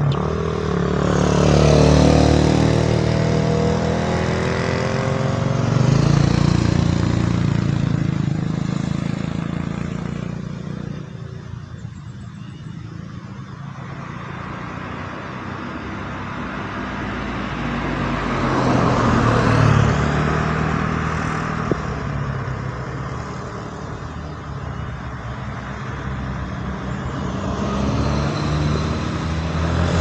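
Motorcycles passing one after another on a winding road, each engine growing louder as it comes by and then fading. They are loudest about two seconds in, about six seconds in and about twenty seconds in, and another is coming near the end, with a lull around twelve seconds.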